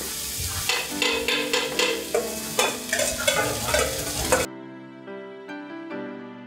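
A Chinese ladle clanking and scraping in a wok as food sizzles hard over a high flame, stir-frying kalbi fried rice, with soft music underneath. About four and a half seconds in the frying cuts off abruptly, leaving only gentle background music.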